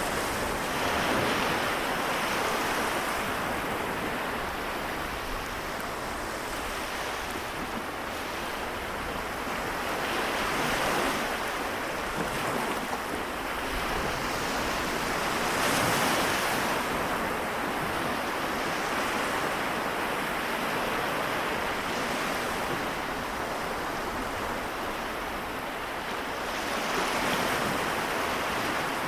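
Sea waves washing onto the shore in a continuous wash that swells louder every several seconds as each wave breaks.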